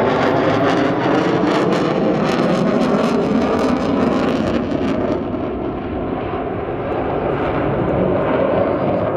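Jet engine noise from a fighter jet flying overhead: a loud, dense rumble with a crackling edge in the first few seconds, easing a little about halfway through.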